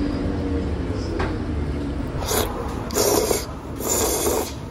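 A person slurping thick udon noodles in curry broth, three loud slurps starting about two seconds in, over a low steady hum.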